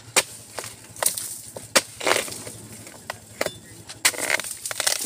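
Pole-mounted harvesting chisel chopping into the fibrous frond bases of an oil palm: several sharp chopping hits at uneven intervals, a few of them longer and crunchier as the fibres tear.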